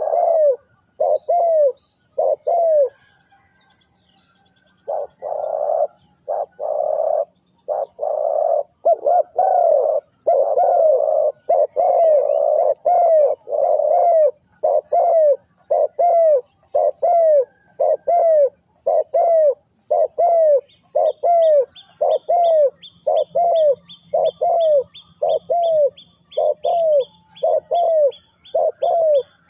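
Spotted dove cooing: a long run of repeated rounded coo notes, broken by a pause of about two seconds near the start. Faint high chirps of smaller birds run through it, and about two-thirds of the way in a fast, high-pitched repeated call from another bird joins in.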